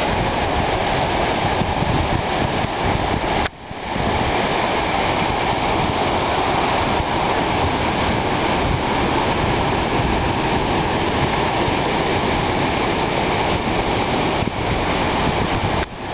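Steady rush of ocean surf breaking on the beach, mixed with wind noise on the microphone. It cuts out briefly twice, once about three and a half seconds in and once near the end.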